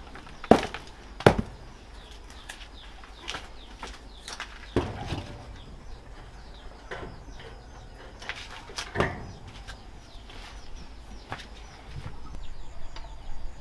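A handful of sharp knocks a few seconds apart, the two loudest close together about a second in. Faint bird chirps sound in the background.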